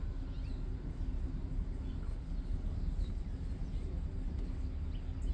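Outdoor background: a steady low rumble with a few faint high bird chirps.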